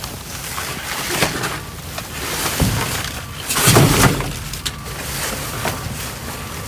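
Rummaging through trash: plastic bags crinkling and items being shifted, with scattered knocks and one heavier thump a little over halfway through.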